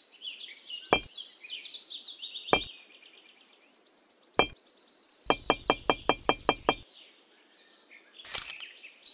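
Miniature clay bricks clicking as they are set down and tapped into place: single sharp knocks about a second in, at two and a half seconds and at four and a half seconds, then a quick run of about eight taps. Birds chirp alongside.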